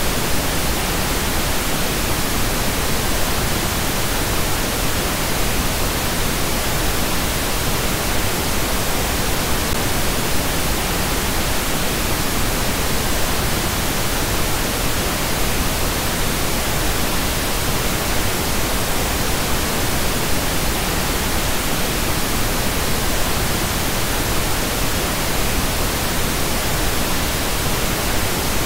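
Pink noise test signal: a steady, even hiss spread across the whole frequency range, unchanging in level.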